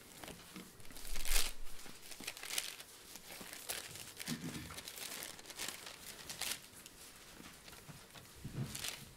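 Bible pages being leafed through to look up a passage: a run of irregular, crisp paper rustles and flicks, the loudest about a second in.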